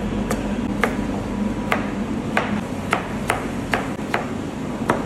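Chef's knife chopping a raw carrot on a plastic cutting board: sharp knocks of the blade hitting the board, about two a second and unevenly spaced, over a steady low hum.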